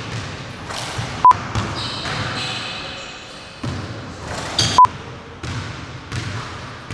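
Basketball bouncing and thudding on a hardwood gym floor, several loose bounces spaced about half a second to a second apart, with a few brief high squeaks. Two sharp, very short clicks stand out as the loudest sounds, one about a second in and one near five seconds.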